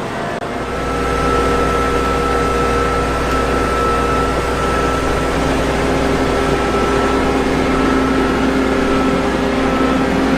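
Combine harvester's engine running steadily, a low drone with a steady whine above it that comes up to full level about half a second in.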